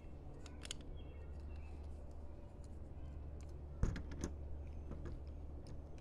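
A few scattered small metallic clicks as pliers grip and turn the nut on the back of a cam lock fitted in a baggage door, with a faint steady low hum underneath.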